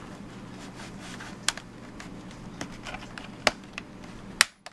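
Scattered sharp clicks and ticks of the plastic-edged bottom cover of an MSI GT72 Dominator laptop as fingernails pry at its rear lip to unclip it. Three louder clicks come about a second and a half, three and a half and four and a half seconds in.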